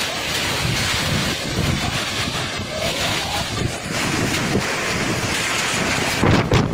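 Strong dust-storm wind gusting and buffeting the microphone, a dense rushing noise that surges with each gust.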